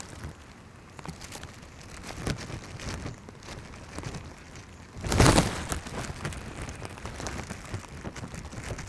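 Rain falling, with many scattered drop ticks over a steady patter, and a louder brief rush of noise about five seconds in.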